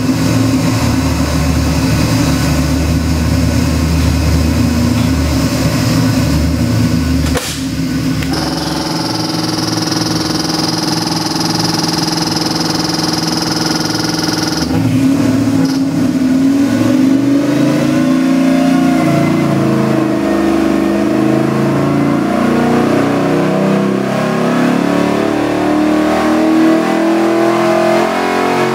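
Chevy LS7 427 cubic-inch V8 crate engine on an engine dynamometer. It runs, then settles to a steady idle about eight seconds in. About fifteen seconds in it goes into a full-throttle dyno pull, its pitch climbing steadily as it winds past 5000 rpm.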